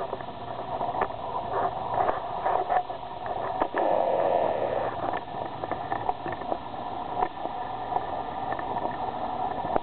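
Steady engine drone with wind noise, heard from inside a vehicle bouncing over a rough grass strip, with frequent knocks and rattles. The drone is a mix of the vehicle and a BushCaddy R-80 ultralight's Rotax 912S engine on its take-off run just ahead.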